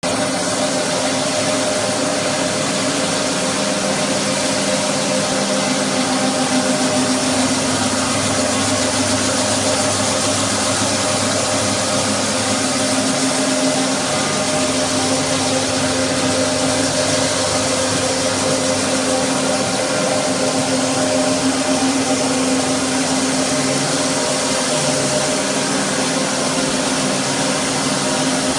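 Roll WOODY single-disc parquet floor sander running steadily as it sands maple parquet: an even motor hum over a steady hiss.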